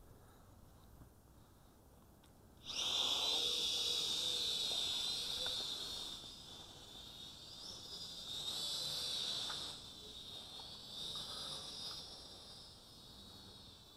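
Fineco FX-6C toy quadcopter's motors and propellers spinning up with a sudden high whine about three seconds in as it lifts off. The pitch wavers with the throttle as it flies, easing off and then swelling again before settling lower.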